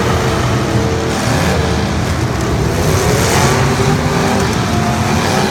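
Truck engines running loud and continuous, with one revving up in pitch about halfway through and again near the end.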